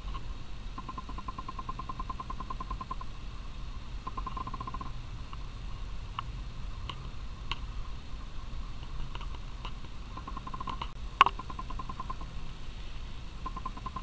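Camera's autofocus and zoom motor running in short bursts of fast, fine ticking over a steady low hum, with a few faint clicks and one sharp click about eleven seconds in.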